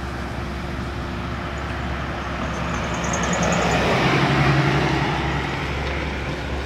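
A van and a 1985 Chrysler Fifth Avenue sedan drive past close by. Their tyre and engine noise builds to a peak about four to five seconds in, then fades.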